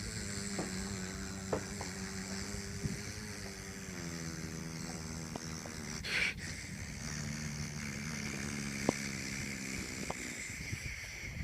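A steady motor hum whose pitch shifts a couple of times, with faint distant pops of fireworks and gunfire scattered through it, and a short hiss about six seconds in.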